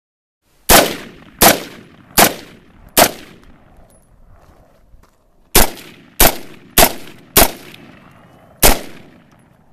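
BCM mid-length AR-15 with a Vltor A5 buffer firing 5.56 rounds semi-automatically. Four shots come about three-quarters of a second apart, then after a pause of about two and a half seconds five more, the last after a slightly longer gap.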